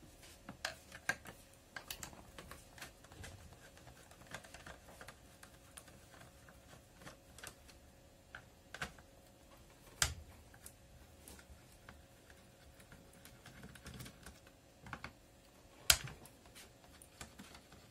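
Screwdriver clicking and scraping on the screws of a Patriot chainsaw's plastic top cover as it is unscrewed: scattered light clicks and taps, with two sharper clicks about ten seconds in and near the end.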